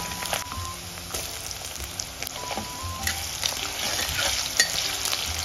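Chicken pieces and sliced onion sizzling steadily in hot oil in a kadai as they fry, stirred now and then with a metal spatula.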